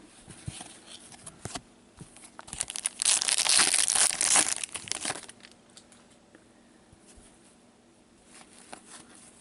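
Hockey card pack wrapper being torn open and crinkled: a loud rustling burst lasting about two and a half seconds midway, with light clicks of cards being handled around it.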